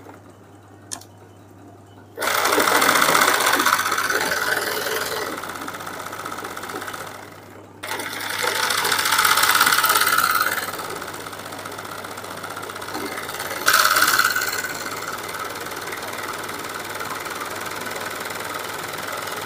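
Sewing machine running for hand-guided machine embroidery, the needle stitching as the hoop is moved by hand. It starts about two seconds in, stops for a moment near the middle, and runs faster in two short spurts.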